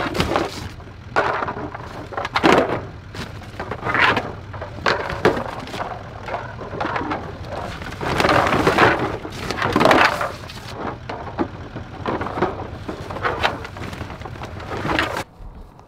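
Hands rummaging through a bag of plastic goose decoys: the bag's fabric rustles and crinkles and the hollow decoy shells clatter and knock against each other in irregular bursts, stopping suddenly near the end.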